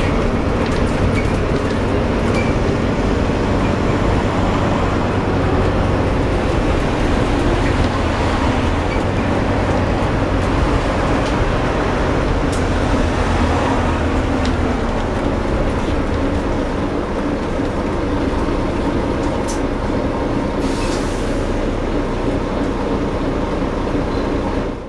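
Volvo B9TL double-decker bus driving, with a steady drone from a bad axle. The low drone drops in pitch about halfway through, with a few light clicks over it.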